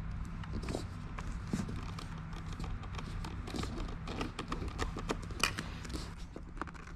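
Irregular light clicks and knocks, as of small objects being handled, over a steady low hum; the sharpest click comes about five and a half seconds in.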